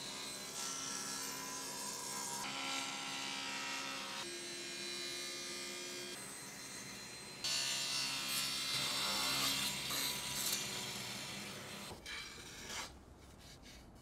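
Table saw running and cutting through a thick live-edge wood slab in a slow pass. The sound shifts abruptly in pitch and loudness several times, then dies down about twelve seconds in.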